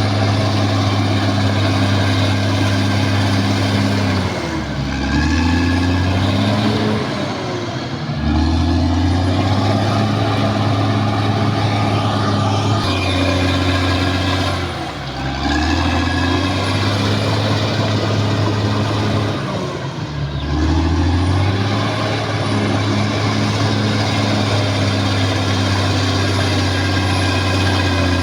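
Caterpillar D6R XL bulldozer's diesel engine running hard, its pitch dipping and climbing back four times as the machine works.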